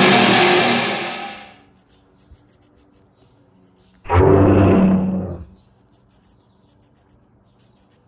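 Two deep roars. The first fades out about a second and a half in, and the second starts suddenly about four seconds in and lasts about a second and a half.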